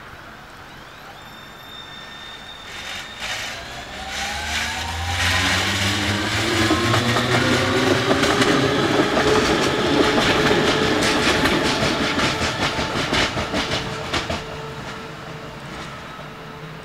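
A Copenhagen Metro train passes close by. Its electric traction motors whine upward in pitch as it speeds up, over rapid clicking of the wheels on the rails. The sound swells, then fades away as the train moves off.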